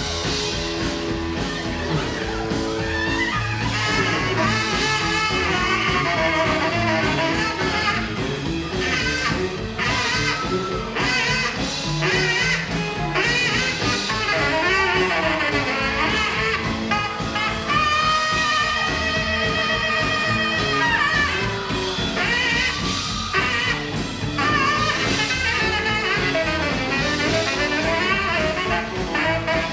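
Live rockabilly band playing an instrumental break: a saxophone plays the lead melody over upright bass, electric guitar and drums.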